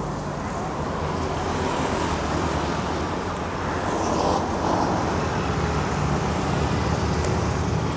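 Steady road traffic noise, with motor vehicle engines running and passing.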